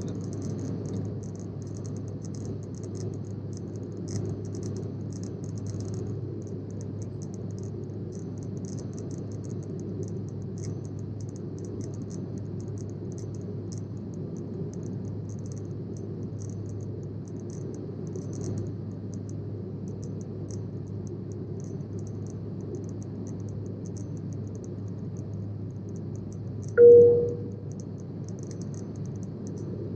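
Steady cabin noise of a Sukhoi Superjet 100 in flight, the low rush and hum of its SaM146 turbofans and the airflow. Near the end there is a single short, loud chime.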